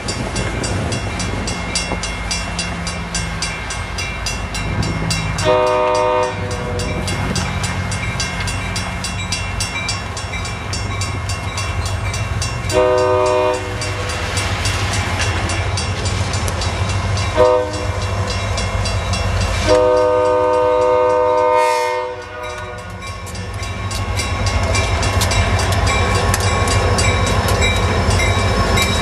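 A Wisconsin & Southern freight train's EMD SD40-series diesel locomotive sounds its air horn in the grade-crossing pattern: long, long, short, long, with the last blast held about two seconds. Its engine rumble grows louder as the locomotives reach the crossing near the end, and a crossing bell rings steadily throughout.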